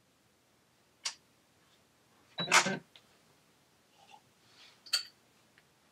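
A computerized sewing machine being switched on: a click about a second in, a short mechanical clatter about two and a half seconds in, and another click near the end.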